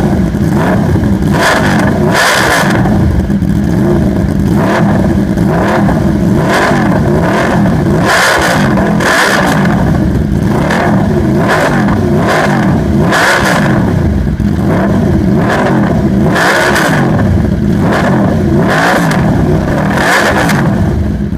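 Aprilia RSV4's V4 engine revved repeatedly at a standstill through an aftermarket short carbon-fibre slip-on exhaust. Quick throttle blips rise and fall over the idle, about one every second or two.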